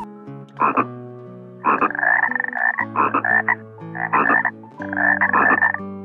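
A green water frog croaking: five calls, the first short and the rest longer bouts of up to about a second.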